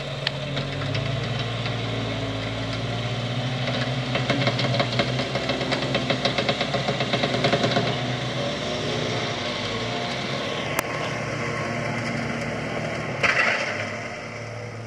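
Jeep's electric front winch pulling the vehicle out of a rut under heavy load, with the engine running. A fast rattle builds from about four seconds in, and the steady hum stops around eight seconds in, which the crew take for the winch giving out.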